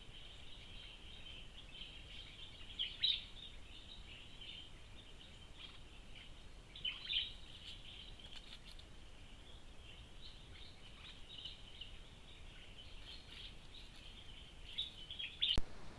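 Woodland ambience: a steady, faint high-pitched chorus of animal calls, with a few louder chirps about three seconds in, about seven seconds in and just before the end.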